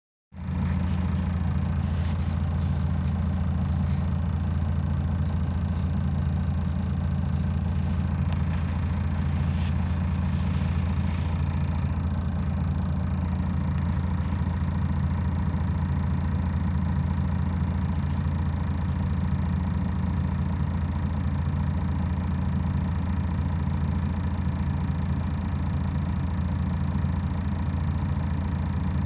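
Scania DC11 six-cylinder diesel engine of a 2003 Scania K114IB bus idling steadily while the bus stands still, heard from inside the passenger cabin.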